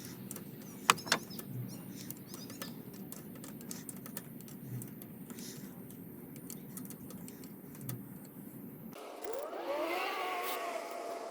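Hand tools and metal engine parts clinking in sharp, scattered clicks over a steady low hum, with two louder clicks about a second in. About nine seconds in the background changes and a wavering, wailing tone glides up and down.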